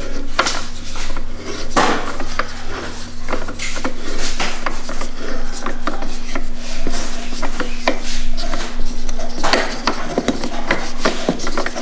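Hand driver turning the clamp bolt on a roof crossbar foot: irregular metallic clicks and scraping as the bit works in the bolt head, over a steady low hum.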